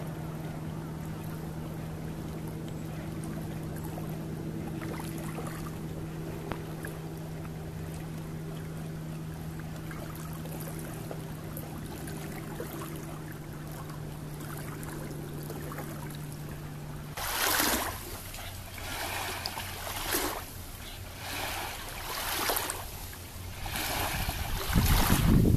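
Outdoor water ambience with a steady low hum that cuts off about two-thirds through. Then comes a series of short rushing noises about a second apart, and wind rumbling on the microphone near the end.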